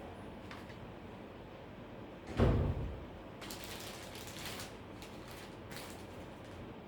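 Handling noise during a repair: a single dull thump about two and a half seconds in, followed by a few seconds of scraping and rustling.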